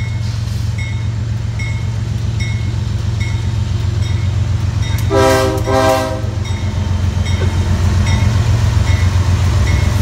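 CSX freight diesel locomotives approaching and passing, with a low engine rumble that grows louder. The air horn sounds two short blasts about five seconds in. A bell dings steadily about once every 0.8 s.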